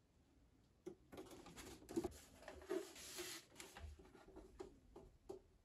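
Faint handling noise as an Akai VCR's plastic casing is turned around by hand: about a second in, a stretch of rubbing and scraping starts, with small knocks and clicks scattered through it.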